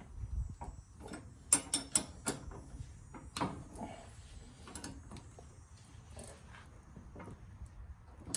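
Tools and parts being handled during work on a lawn tractor's steering: a run of sharp clicks and knocks, several loud ones close together about one and a half to three and a half seconds in, then fainter scattered ones.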